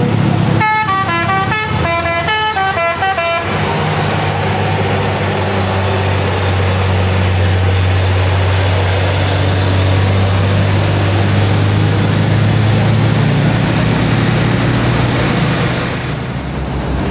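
Heavy diesel truck engine running steadily under load on a climb. About a second in, a multi-tone air horn plays a quick run of changing notes for about three seconds. The engine sound drops away near the end.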